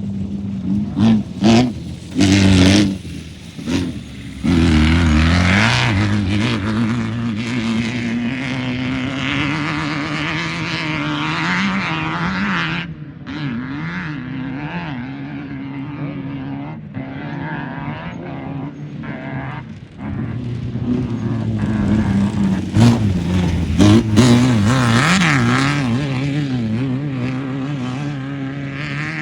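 Off-road race car engine revving hard, its pitch rising and falling with the throttle. It gives a few short loud blasts in the first four seconds, then runs on loudly, with brief drops as the throttle lifts.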